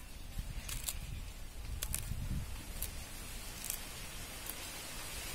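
Fresh mint being torn by hand into a bowl, with scattered faint crisp ticks as stems and leaves snap, over a steady low rumble.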